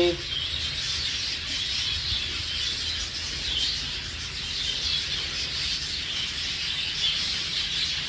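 A roomful of budgerigars chattering and chirping without pause, over a low steady hum.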